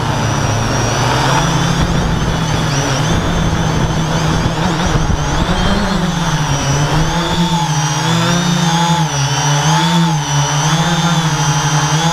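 Electric motors and propellers of a radio-controlled model aircraft, heard from its onboard camera: a steady buzzing hum with a rush of air noise over it. After about six seconds the hum wavers up and down in pitch.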